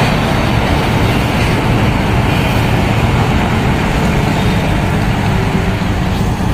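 Large mining haul truck being loaded by an electric rope shovel: rock pours from the shovel's dipper into the truck's steel bed over a loud, steady machinery rumble.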